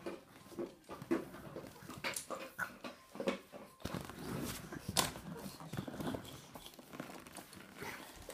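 A large dog making short, irregular noises, with scattered knocks and rustling throughout.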